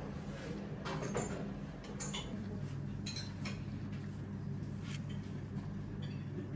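Scattered light clinks and clicks of dishes and cutlery over a steady low hum.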